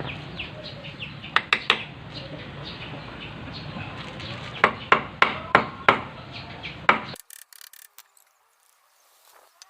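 Sharp knocks struck on a rusted, stuck part of a flood-damaged Honda Dio 50cc scooter while working it loose: a few at first, then five in a row about three a second, before the sound drops away abruptly.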